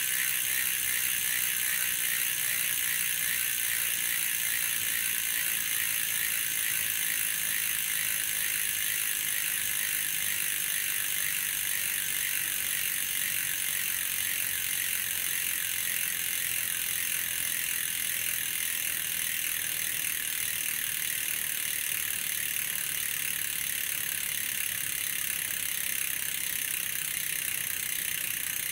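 Freehub of a Vision Metron 55 rear wheel clicking as the wheel coasts on a stand, the pawl clicks coming so fast that they run together into a steady high buzz. It gets slightly quieter as the wheel slows. The hub has been run in for about 500 km.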